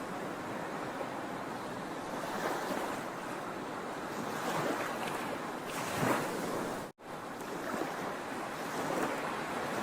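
Sea waves breaking and washing ashore as steady surf that swells every couple of seconds. The sound cuts out for an instant about seven seconds in.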